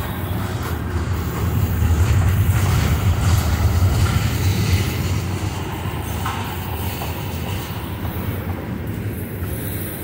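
Freight train of tank cars rolling past close by: a steady rumble of steel wheels on the rails, swelling a little about two seconds in.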